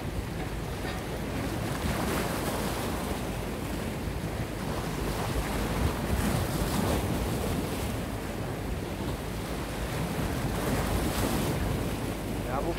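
Sea waves washing and splashing against the shoreline rocks, swelling every few seconds, with wind buffeting the microphone.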